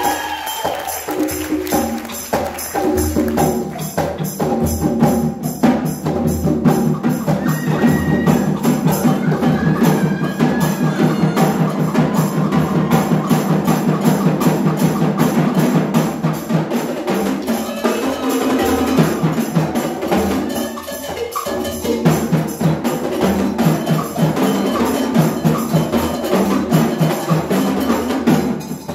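Live drum ensemble of congas and marching tenor drums playing a fast, driving rhythm, with sharp wooden clacks and ringing pitched tones running through it.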